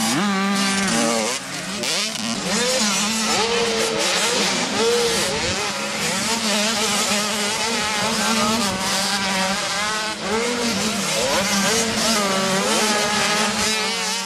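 Several motocross bike engines revving hard at once, their pitch rising and falling over and over as they accelerate and shift, over a steady low hum.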